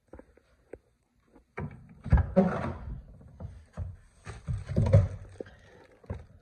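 Cab door of a Chevrolet Silverado pickup being opened and handled: a series of clunks and knocks, the heaviest about two seconds in and again near five seconds.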